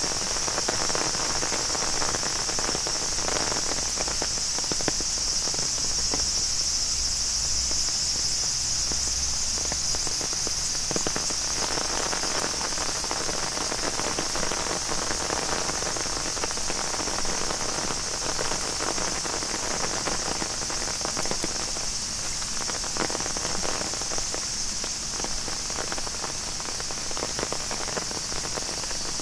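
A steady, high-pitched chorus of insects, over a softer patter of rain and footsteps.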